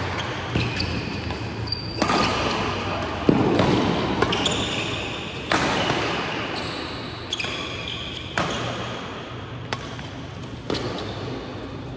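Badminton doubles rally: rackets striking the shuttlecock about once a second, each hit sharp and echoing in the hall, with sports shoes squeaking on the court floor between shots.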